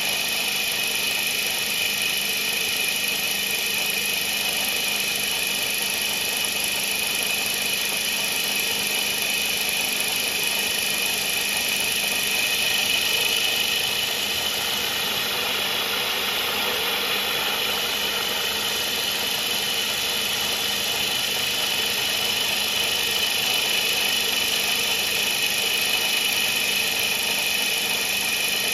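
CNC mill spindle running an Accusize 82-degree indexable carbide countersink as it cuts aluminium under coolant: a steady machining whine over a hiss, with no breaks.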